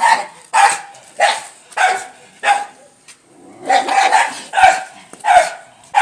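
A dog barking repeatedly, roughly a bark every two-thirds of a second, with a pause of about a second midway.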